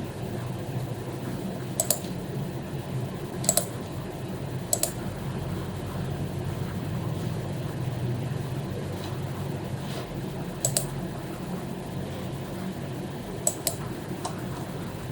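Occasional clicks from an HP membrane keyboard and computer mouse, about six in all, some in quick pairs, over a steady low hum.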